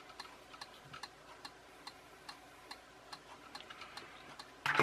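Small brushed DC toy-car motor turning slowly on test leads, giving faint, uneven ticks about three or four a second. It is the faulty, overheated drive motor, which only gets going when spun by hand and then runs very slowly.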